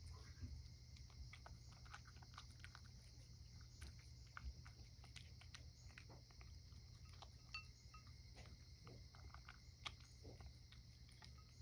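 A domestic cat eating dry kibble mixed with canned food from a ceramic bowl: faint, irregular chewing and crunching clicks.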